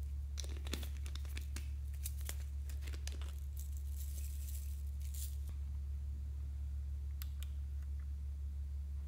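Glitter and confetti sprinkles shaken and tipped from small plastic bottles onto slime, giving a run of small clicks and crackles through the first half, with a few more clicks later on. A steady low hum runs underneath.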